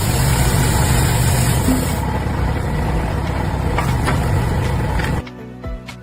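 A machine running with a loud, steady rumbling noise that cuts off suddenly about five seconds in.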